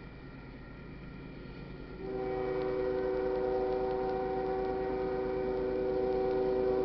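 Diesel freight locomotive's multi-chime air horn sounding one long, steady blast for the grade crossing, starting about two seconds in and cutting off near the end.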